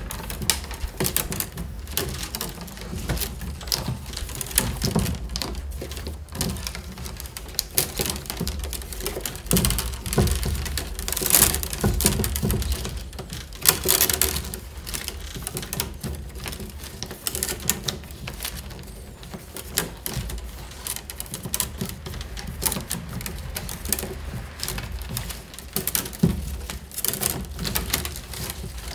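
Peeled wicker rods clicking and creaking as they are woven in and out between the ribs of a round basket tray by hand. Irregular sharp clicks and taps, busiest in the middle.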